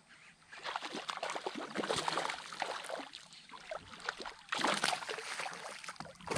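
Topwater bass lure being worked across the water surface, splashing in quick, irregular bursts, with a louder burst about four and a half seconds in.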